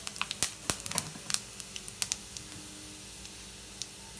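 Whole spices (cumin seeds and cardamom) crackling in hot oil in a steel kadhai: tempering the garam masala. Sharp irregular pops come thick in the first two seconds, then thin out, over a faint steady sizzle.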